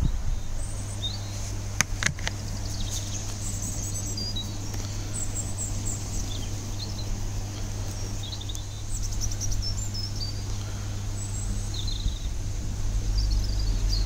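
Small birds chirping and twittering over a steady low hum, with a couple of sharp clicks about two seconds in.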